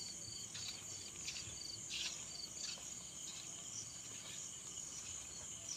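Night chorus of crickets and other insects: a steady high-pitched buzz, with one cricket's short pulsed chirps repeating about every 0.7 s through the first half. A few faint scuffs of footsteps on a dirt path are heard under it.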